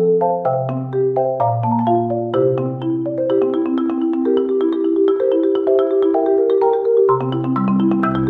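Background music: a light melody of pitched notes over a bass line, in a steady rhythm.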